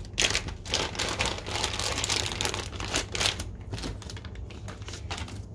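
Clear plastic packaging bags crinkling and rustling as they are handled, in irregular bursts with a few louder crackles.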